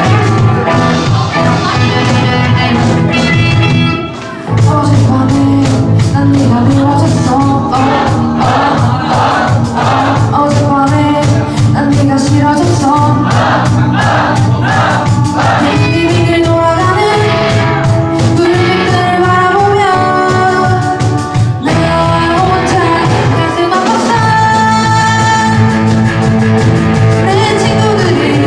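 Live rock band playing: drums, electric guitars, bass and keyboard, with a woman singing lead. The band breaks off briefly about four seconds in, then comes back in.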